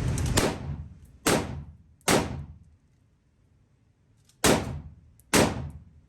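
Five rifle shots, likely from a .223 rifle: three about a second apart, a pause of about two seconds, then two more, each with a short echoing tail.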